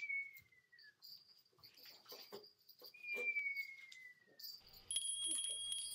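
Someone whistling two thin notes, each sliding slowly downward for about a second, with soft clicks and small mouth sounds between them; a steadier high tone with crackle comes in near the end.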